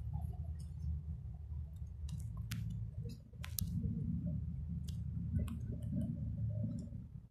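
Steady low rumble inside a moving cable-car gondola cabin, with scattered sharp clicks and ticks, most of them between about two and six seconds in.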